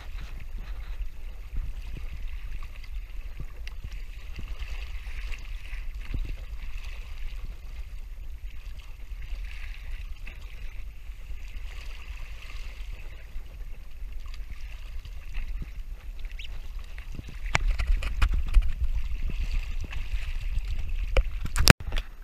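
Water splashing and sloshing against a kayak's hull as a hooked marlin thrashes alongside, over a steady wind rumble on the microphone. The splashing gets louder a few seconds before the end, then breaks off abruptly.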